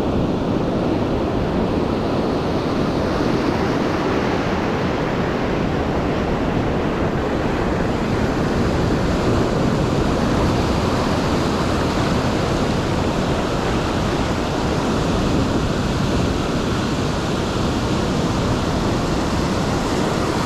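Ocean surf breaking and washing over a sandy beach, a steady rush of foaming water that never lets up.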